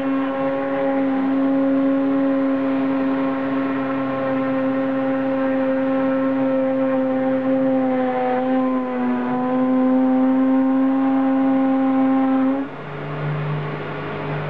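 CNC machine running, its motors giving a loud, steady pitched whine. The pitch dips briefly about eight seconds in. Near the end it cuts to a quieter, lower hum.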